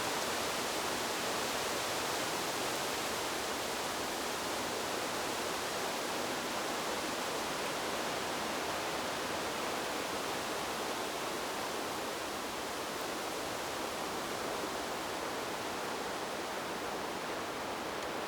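Wind blowing steadily through forest trees, an even rustle of leaves that neither rises nor falls.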